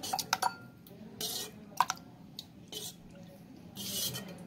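Thick, set falooda mixture being poured into a glass, landing in wet plops and splashes, with several short sharp clicks near the start and again about two seconds in.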